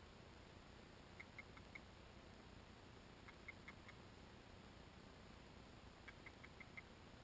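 Faint, muffled mallard-style quacks in three quick runs of four, a couple of seconds apart.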